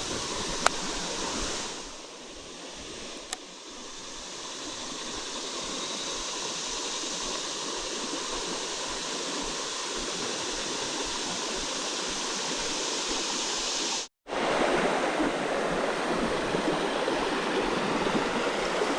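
Small creek's water running steadily over its bed, an even rushing noise. A short tick comes about a second in and another about three seconds in, and the sound cuts out for a moment about fourteen seconds in.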